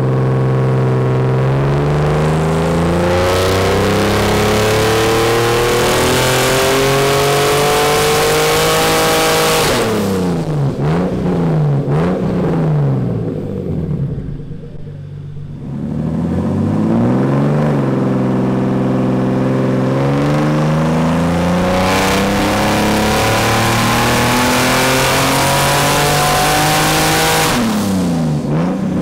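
Turbocharged BMW E36 M3 straight-six making two full-throttle pulls under load on a hub dyno. The engine's pitch climbs steadily for about ten seconds, then the revs fall back and settle lower for a moment. A second identical climb follows, and the revs drop again near the end.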